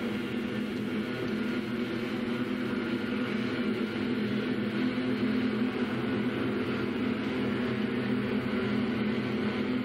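Film projector running: a steady mechanical whirr over a low hum, even throughout.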